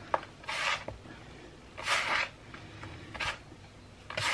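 A hand scraping and scooping through damp, crumbly bath bomb mixture of bicarbonate of soda and citric acid in a metal tray: about four short, gritty scrapes roughly a second apart.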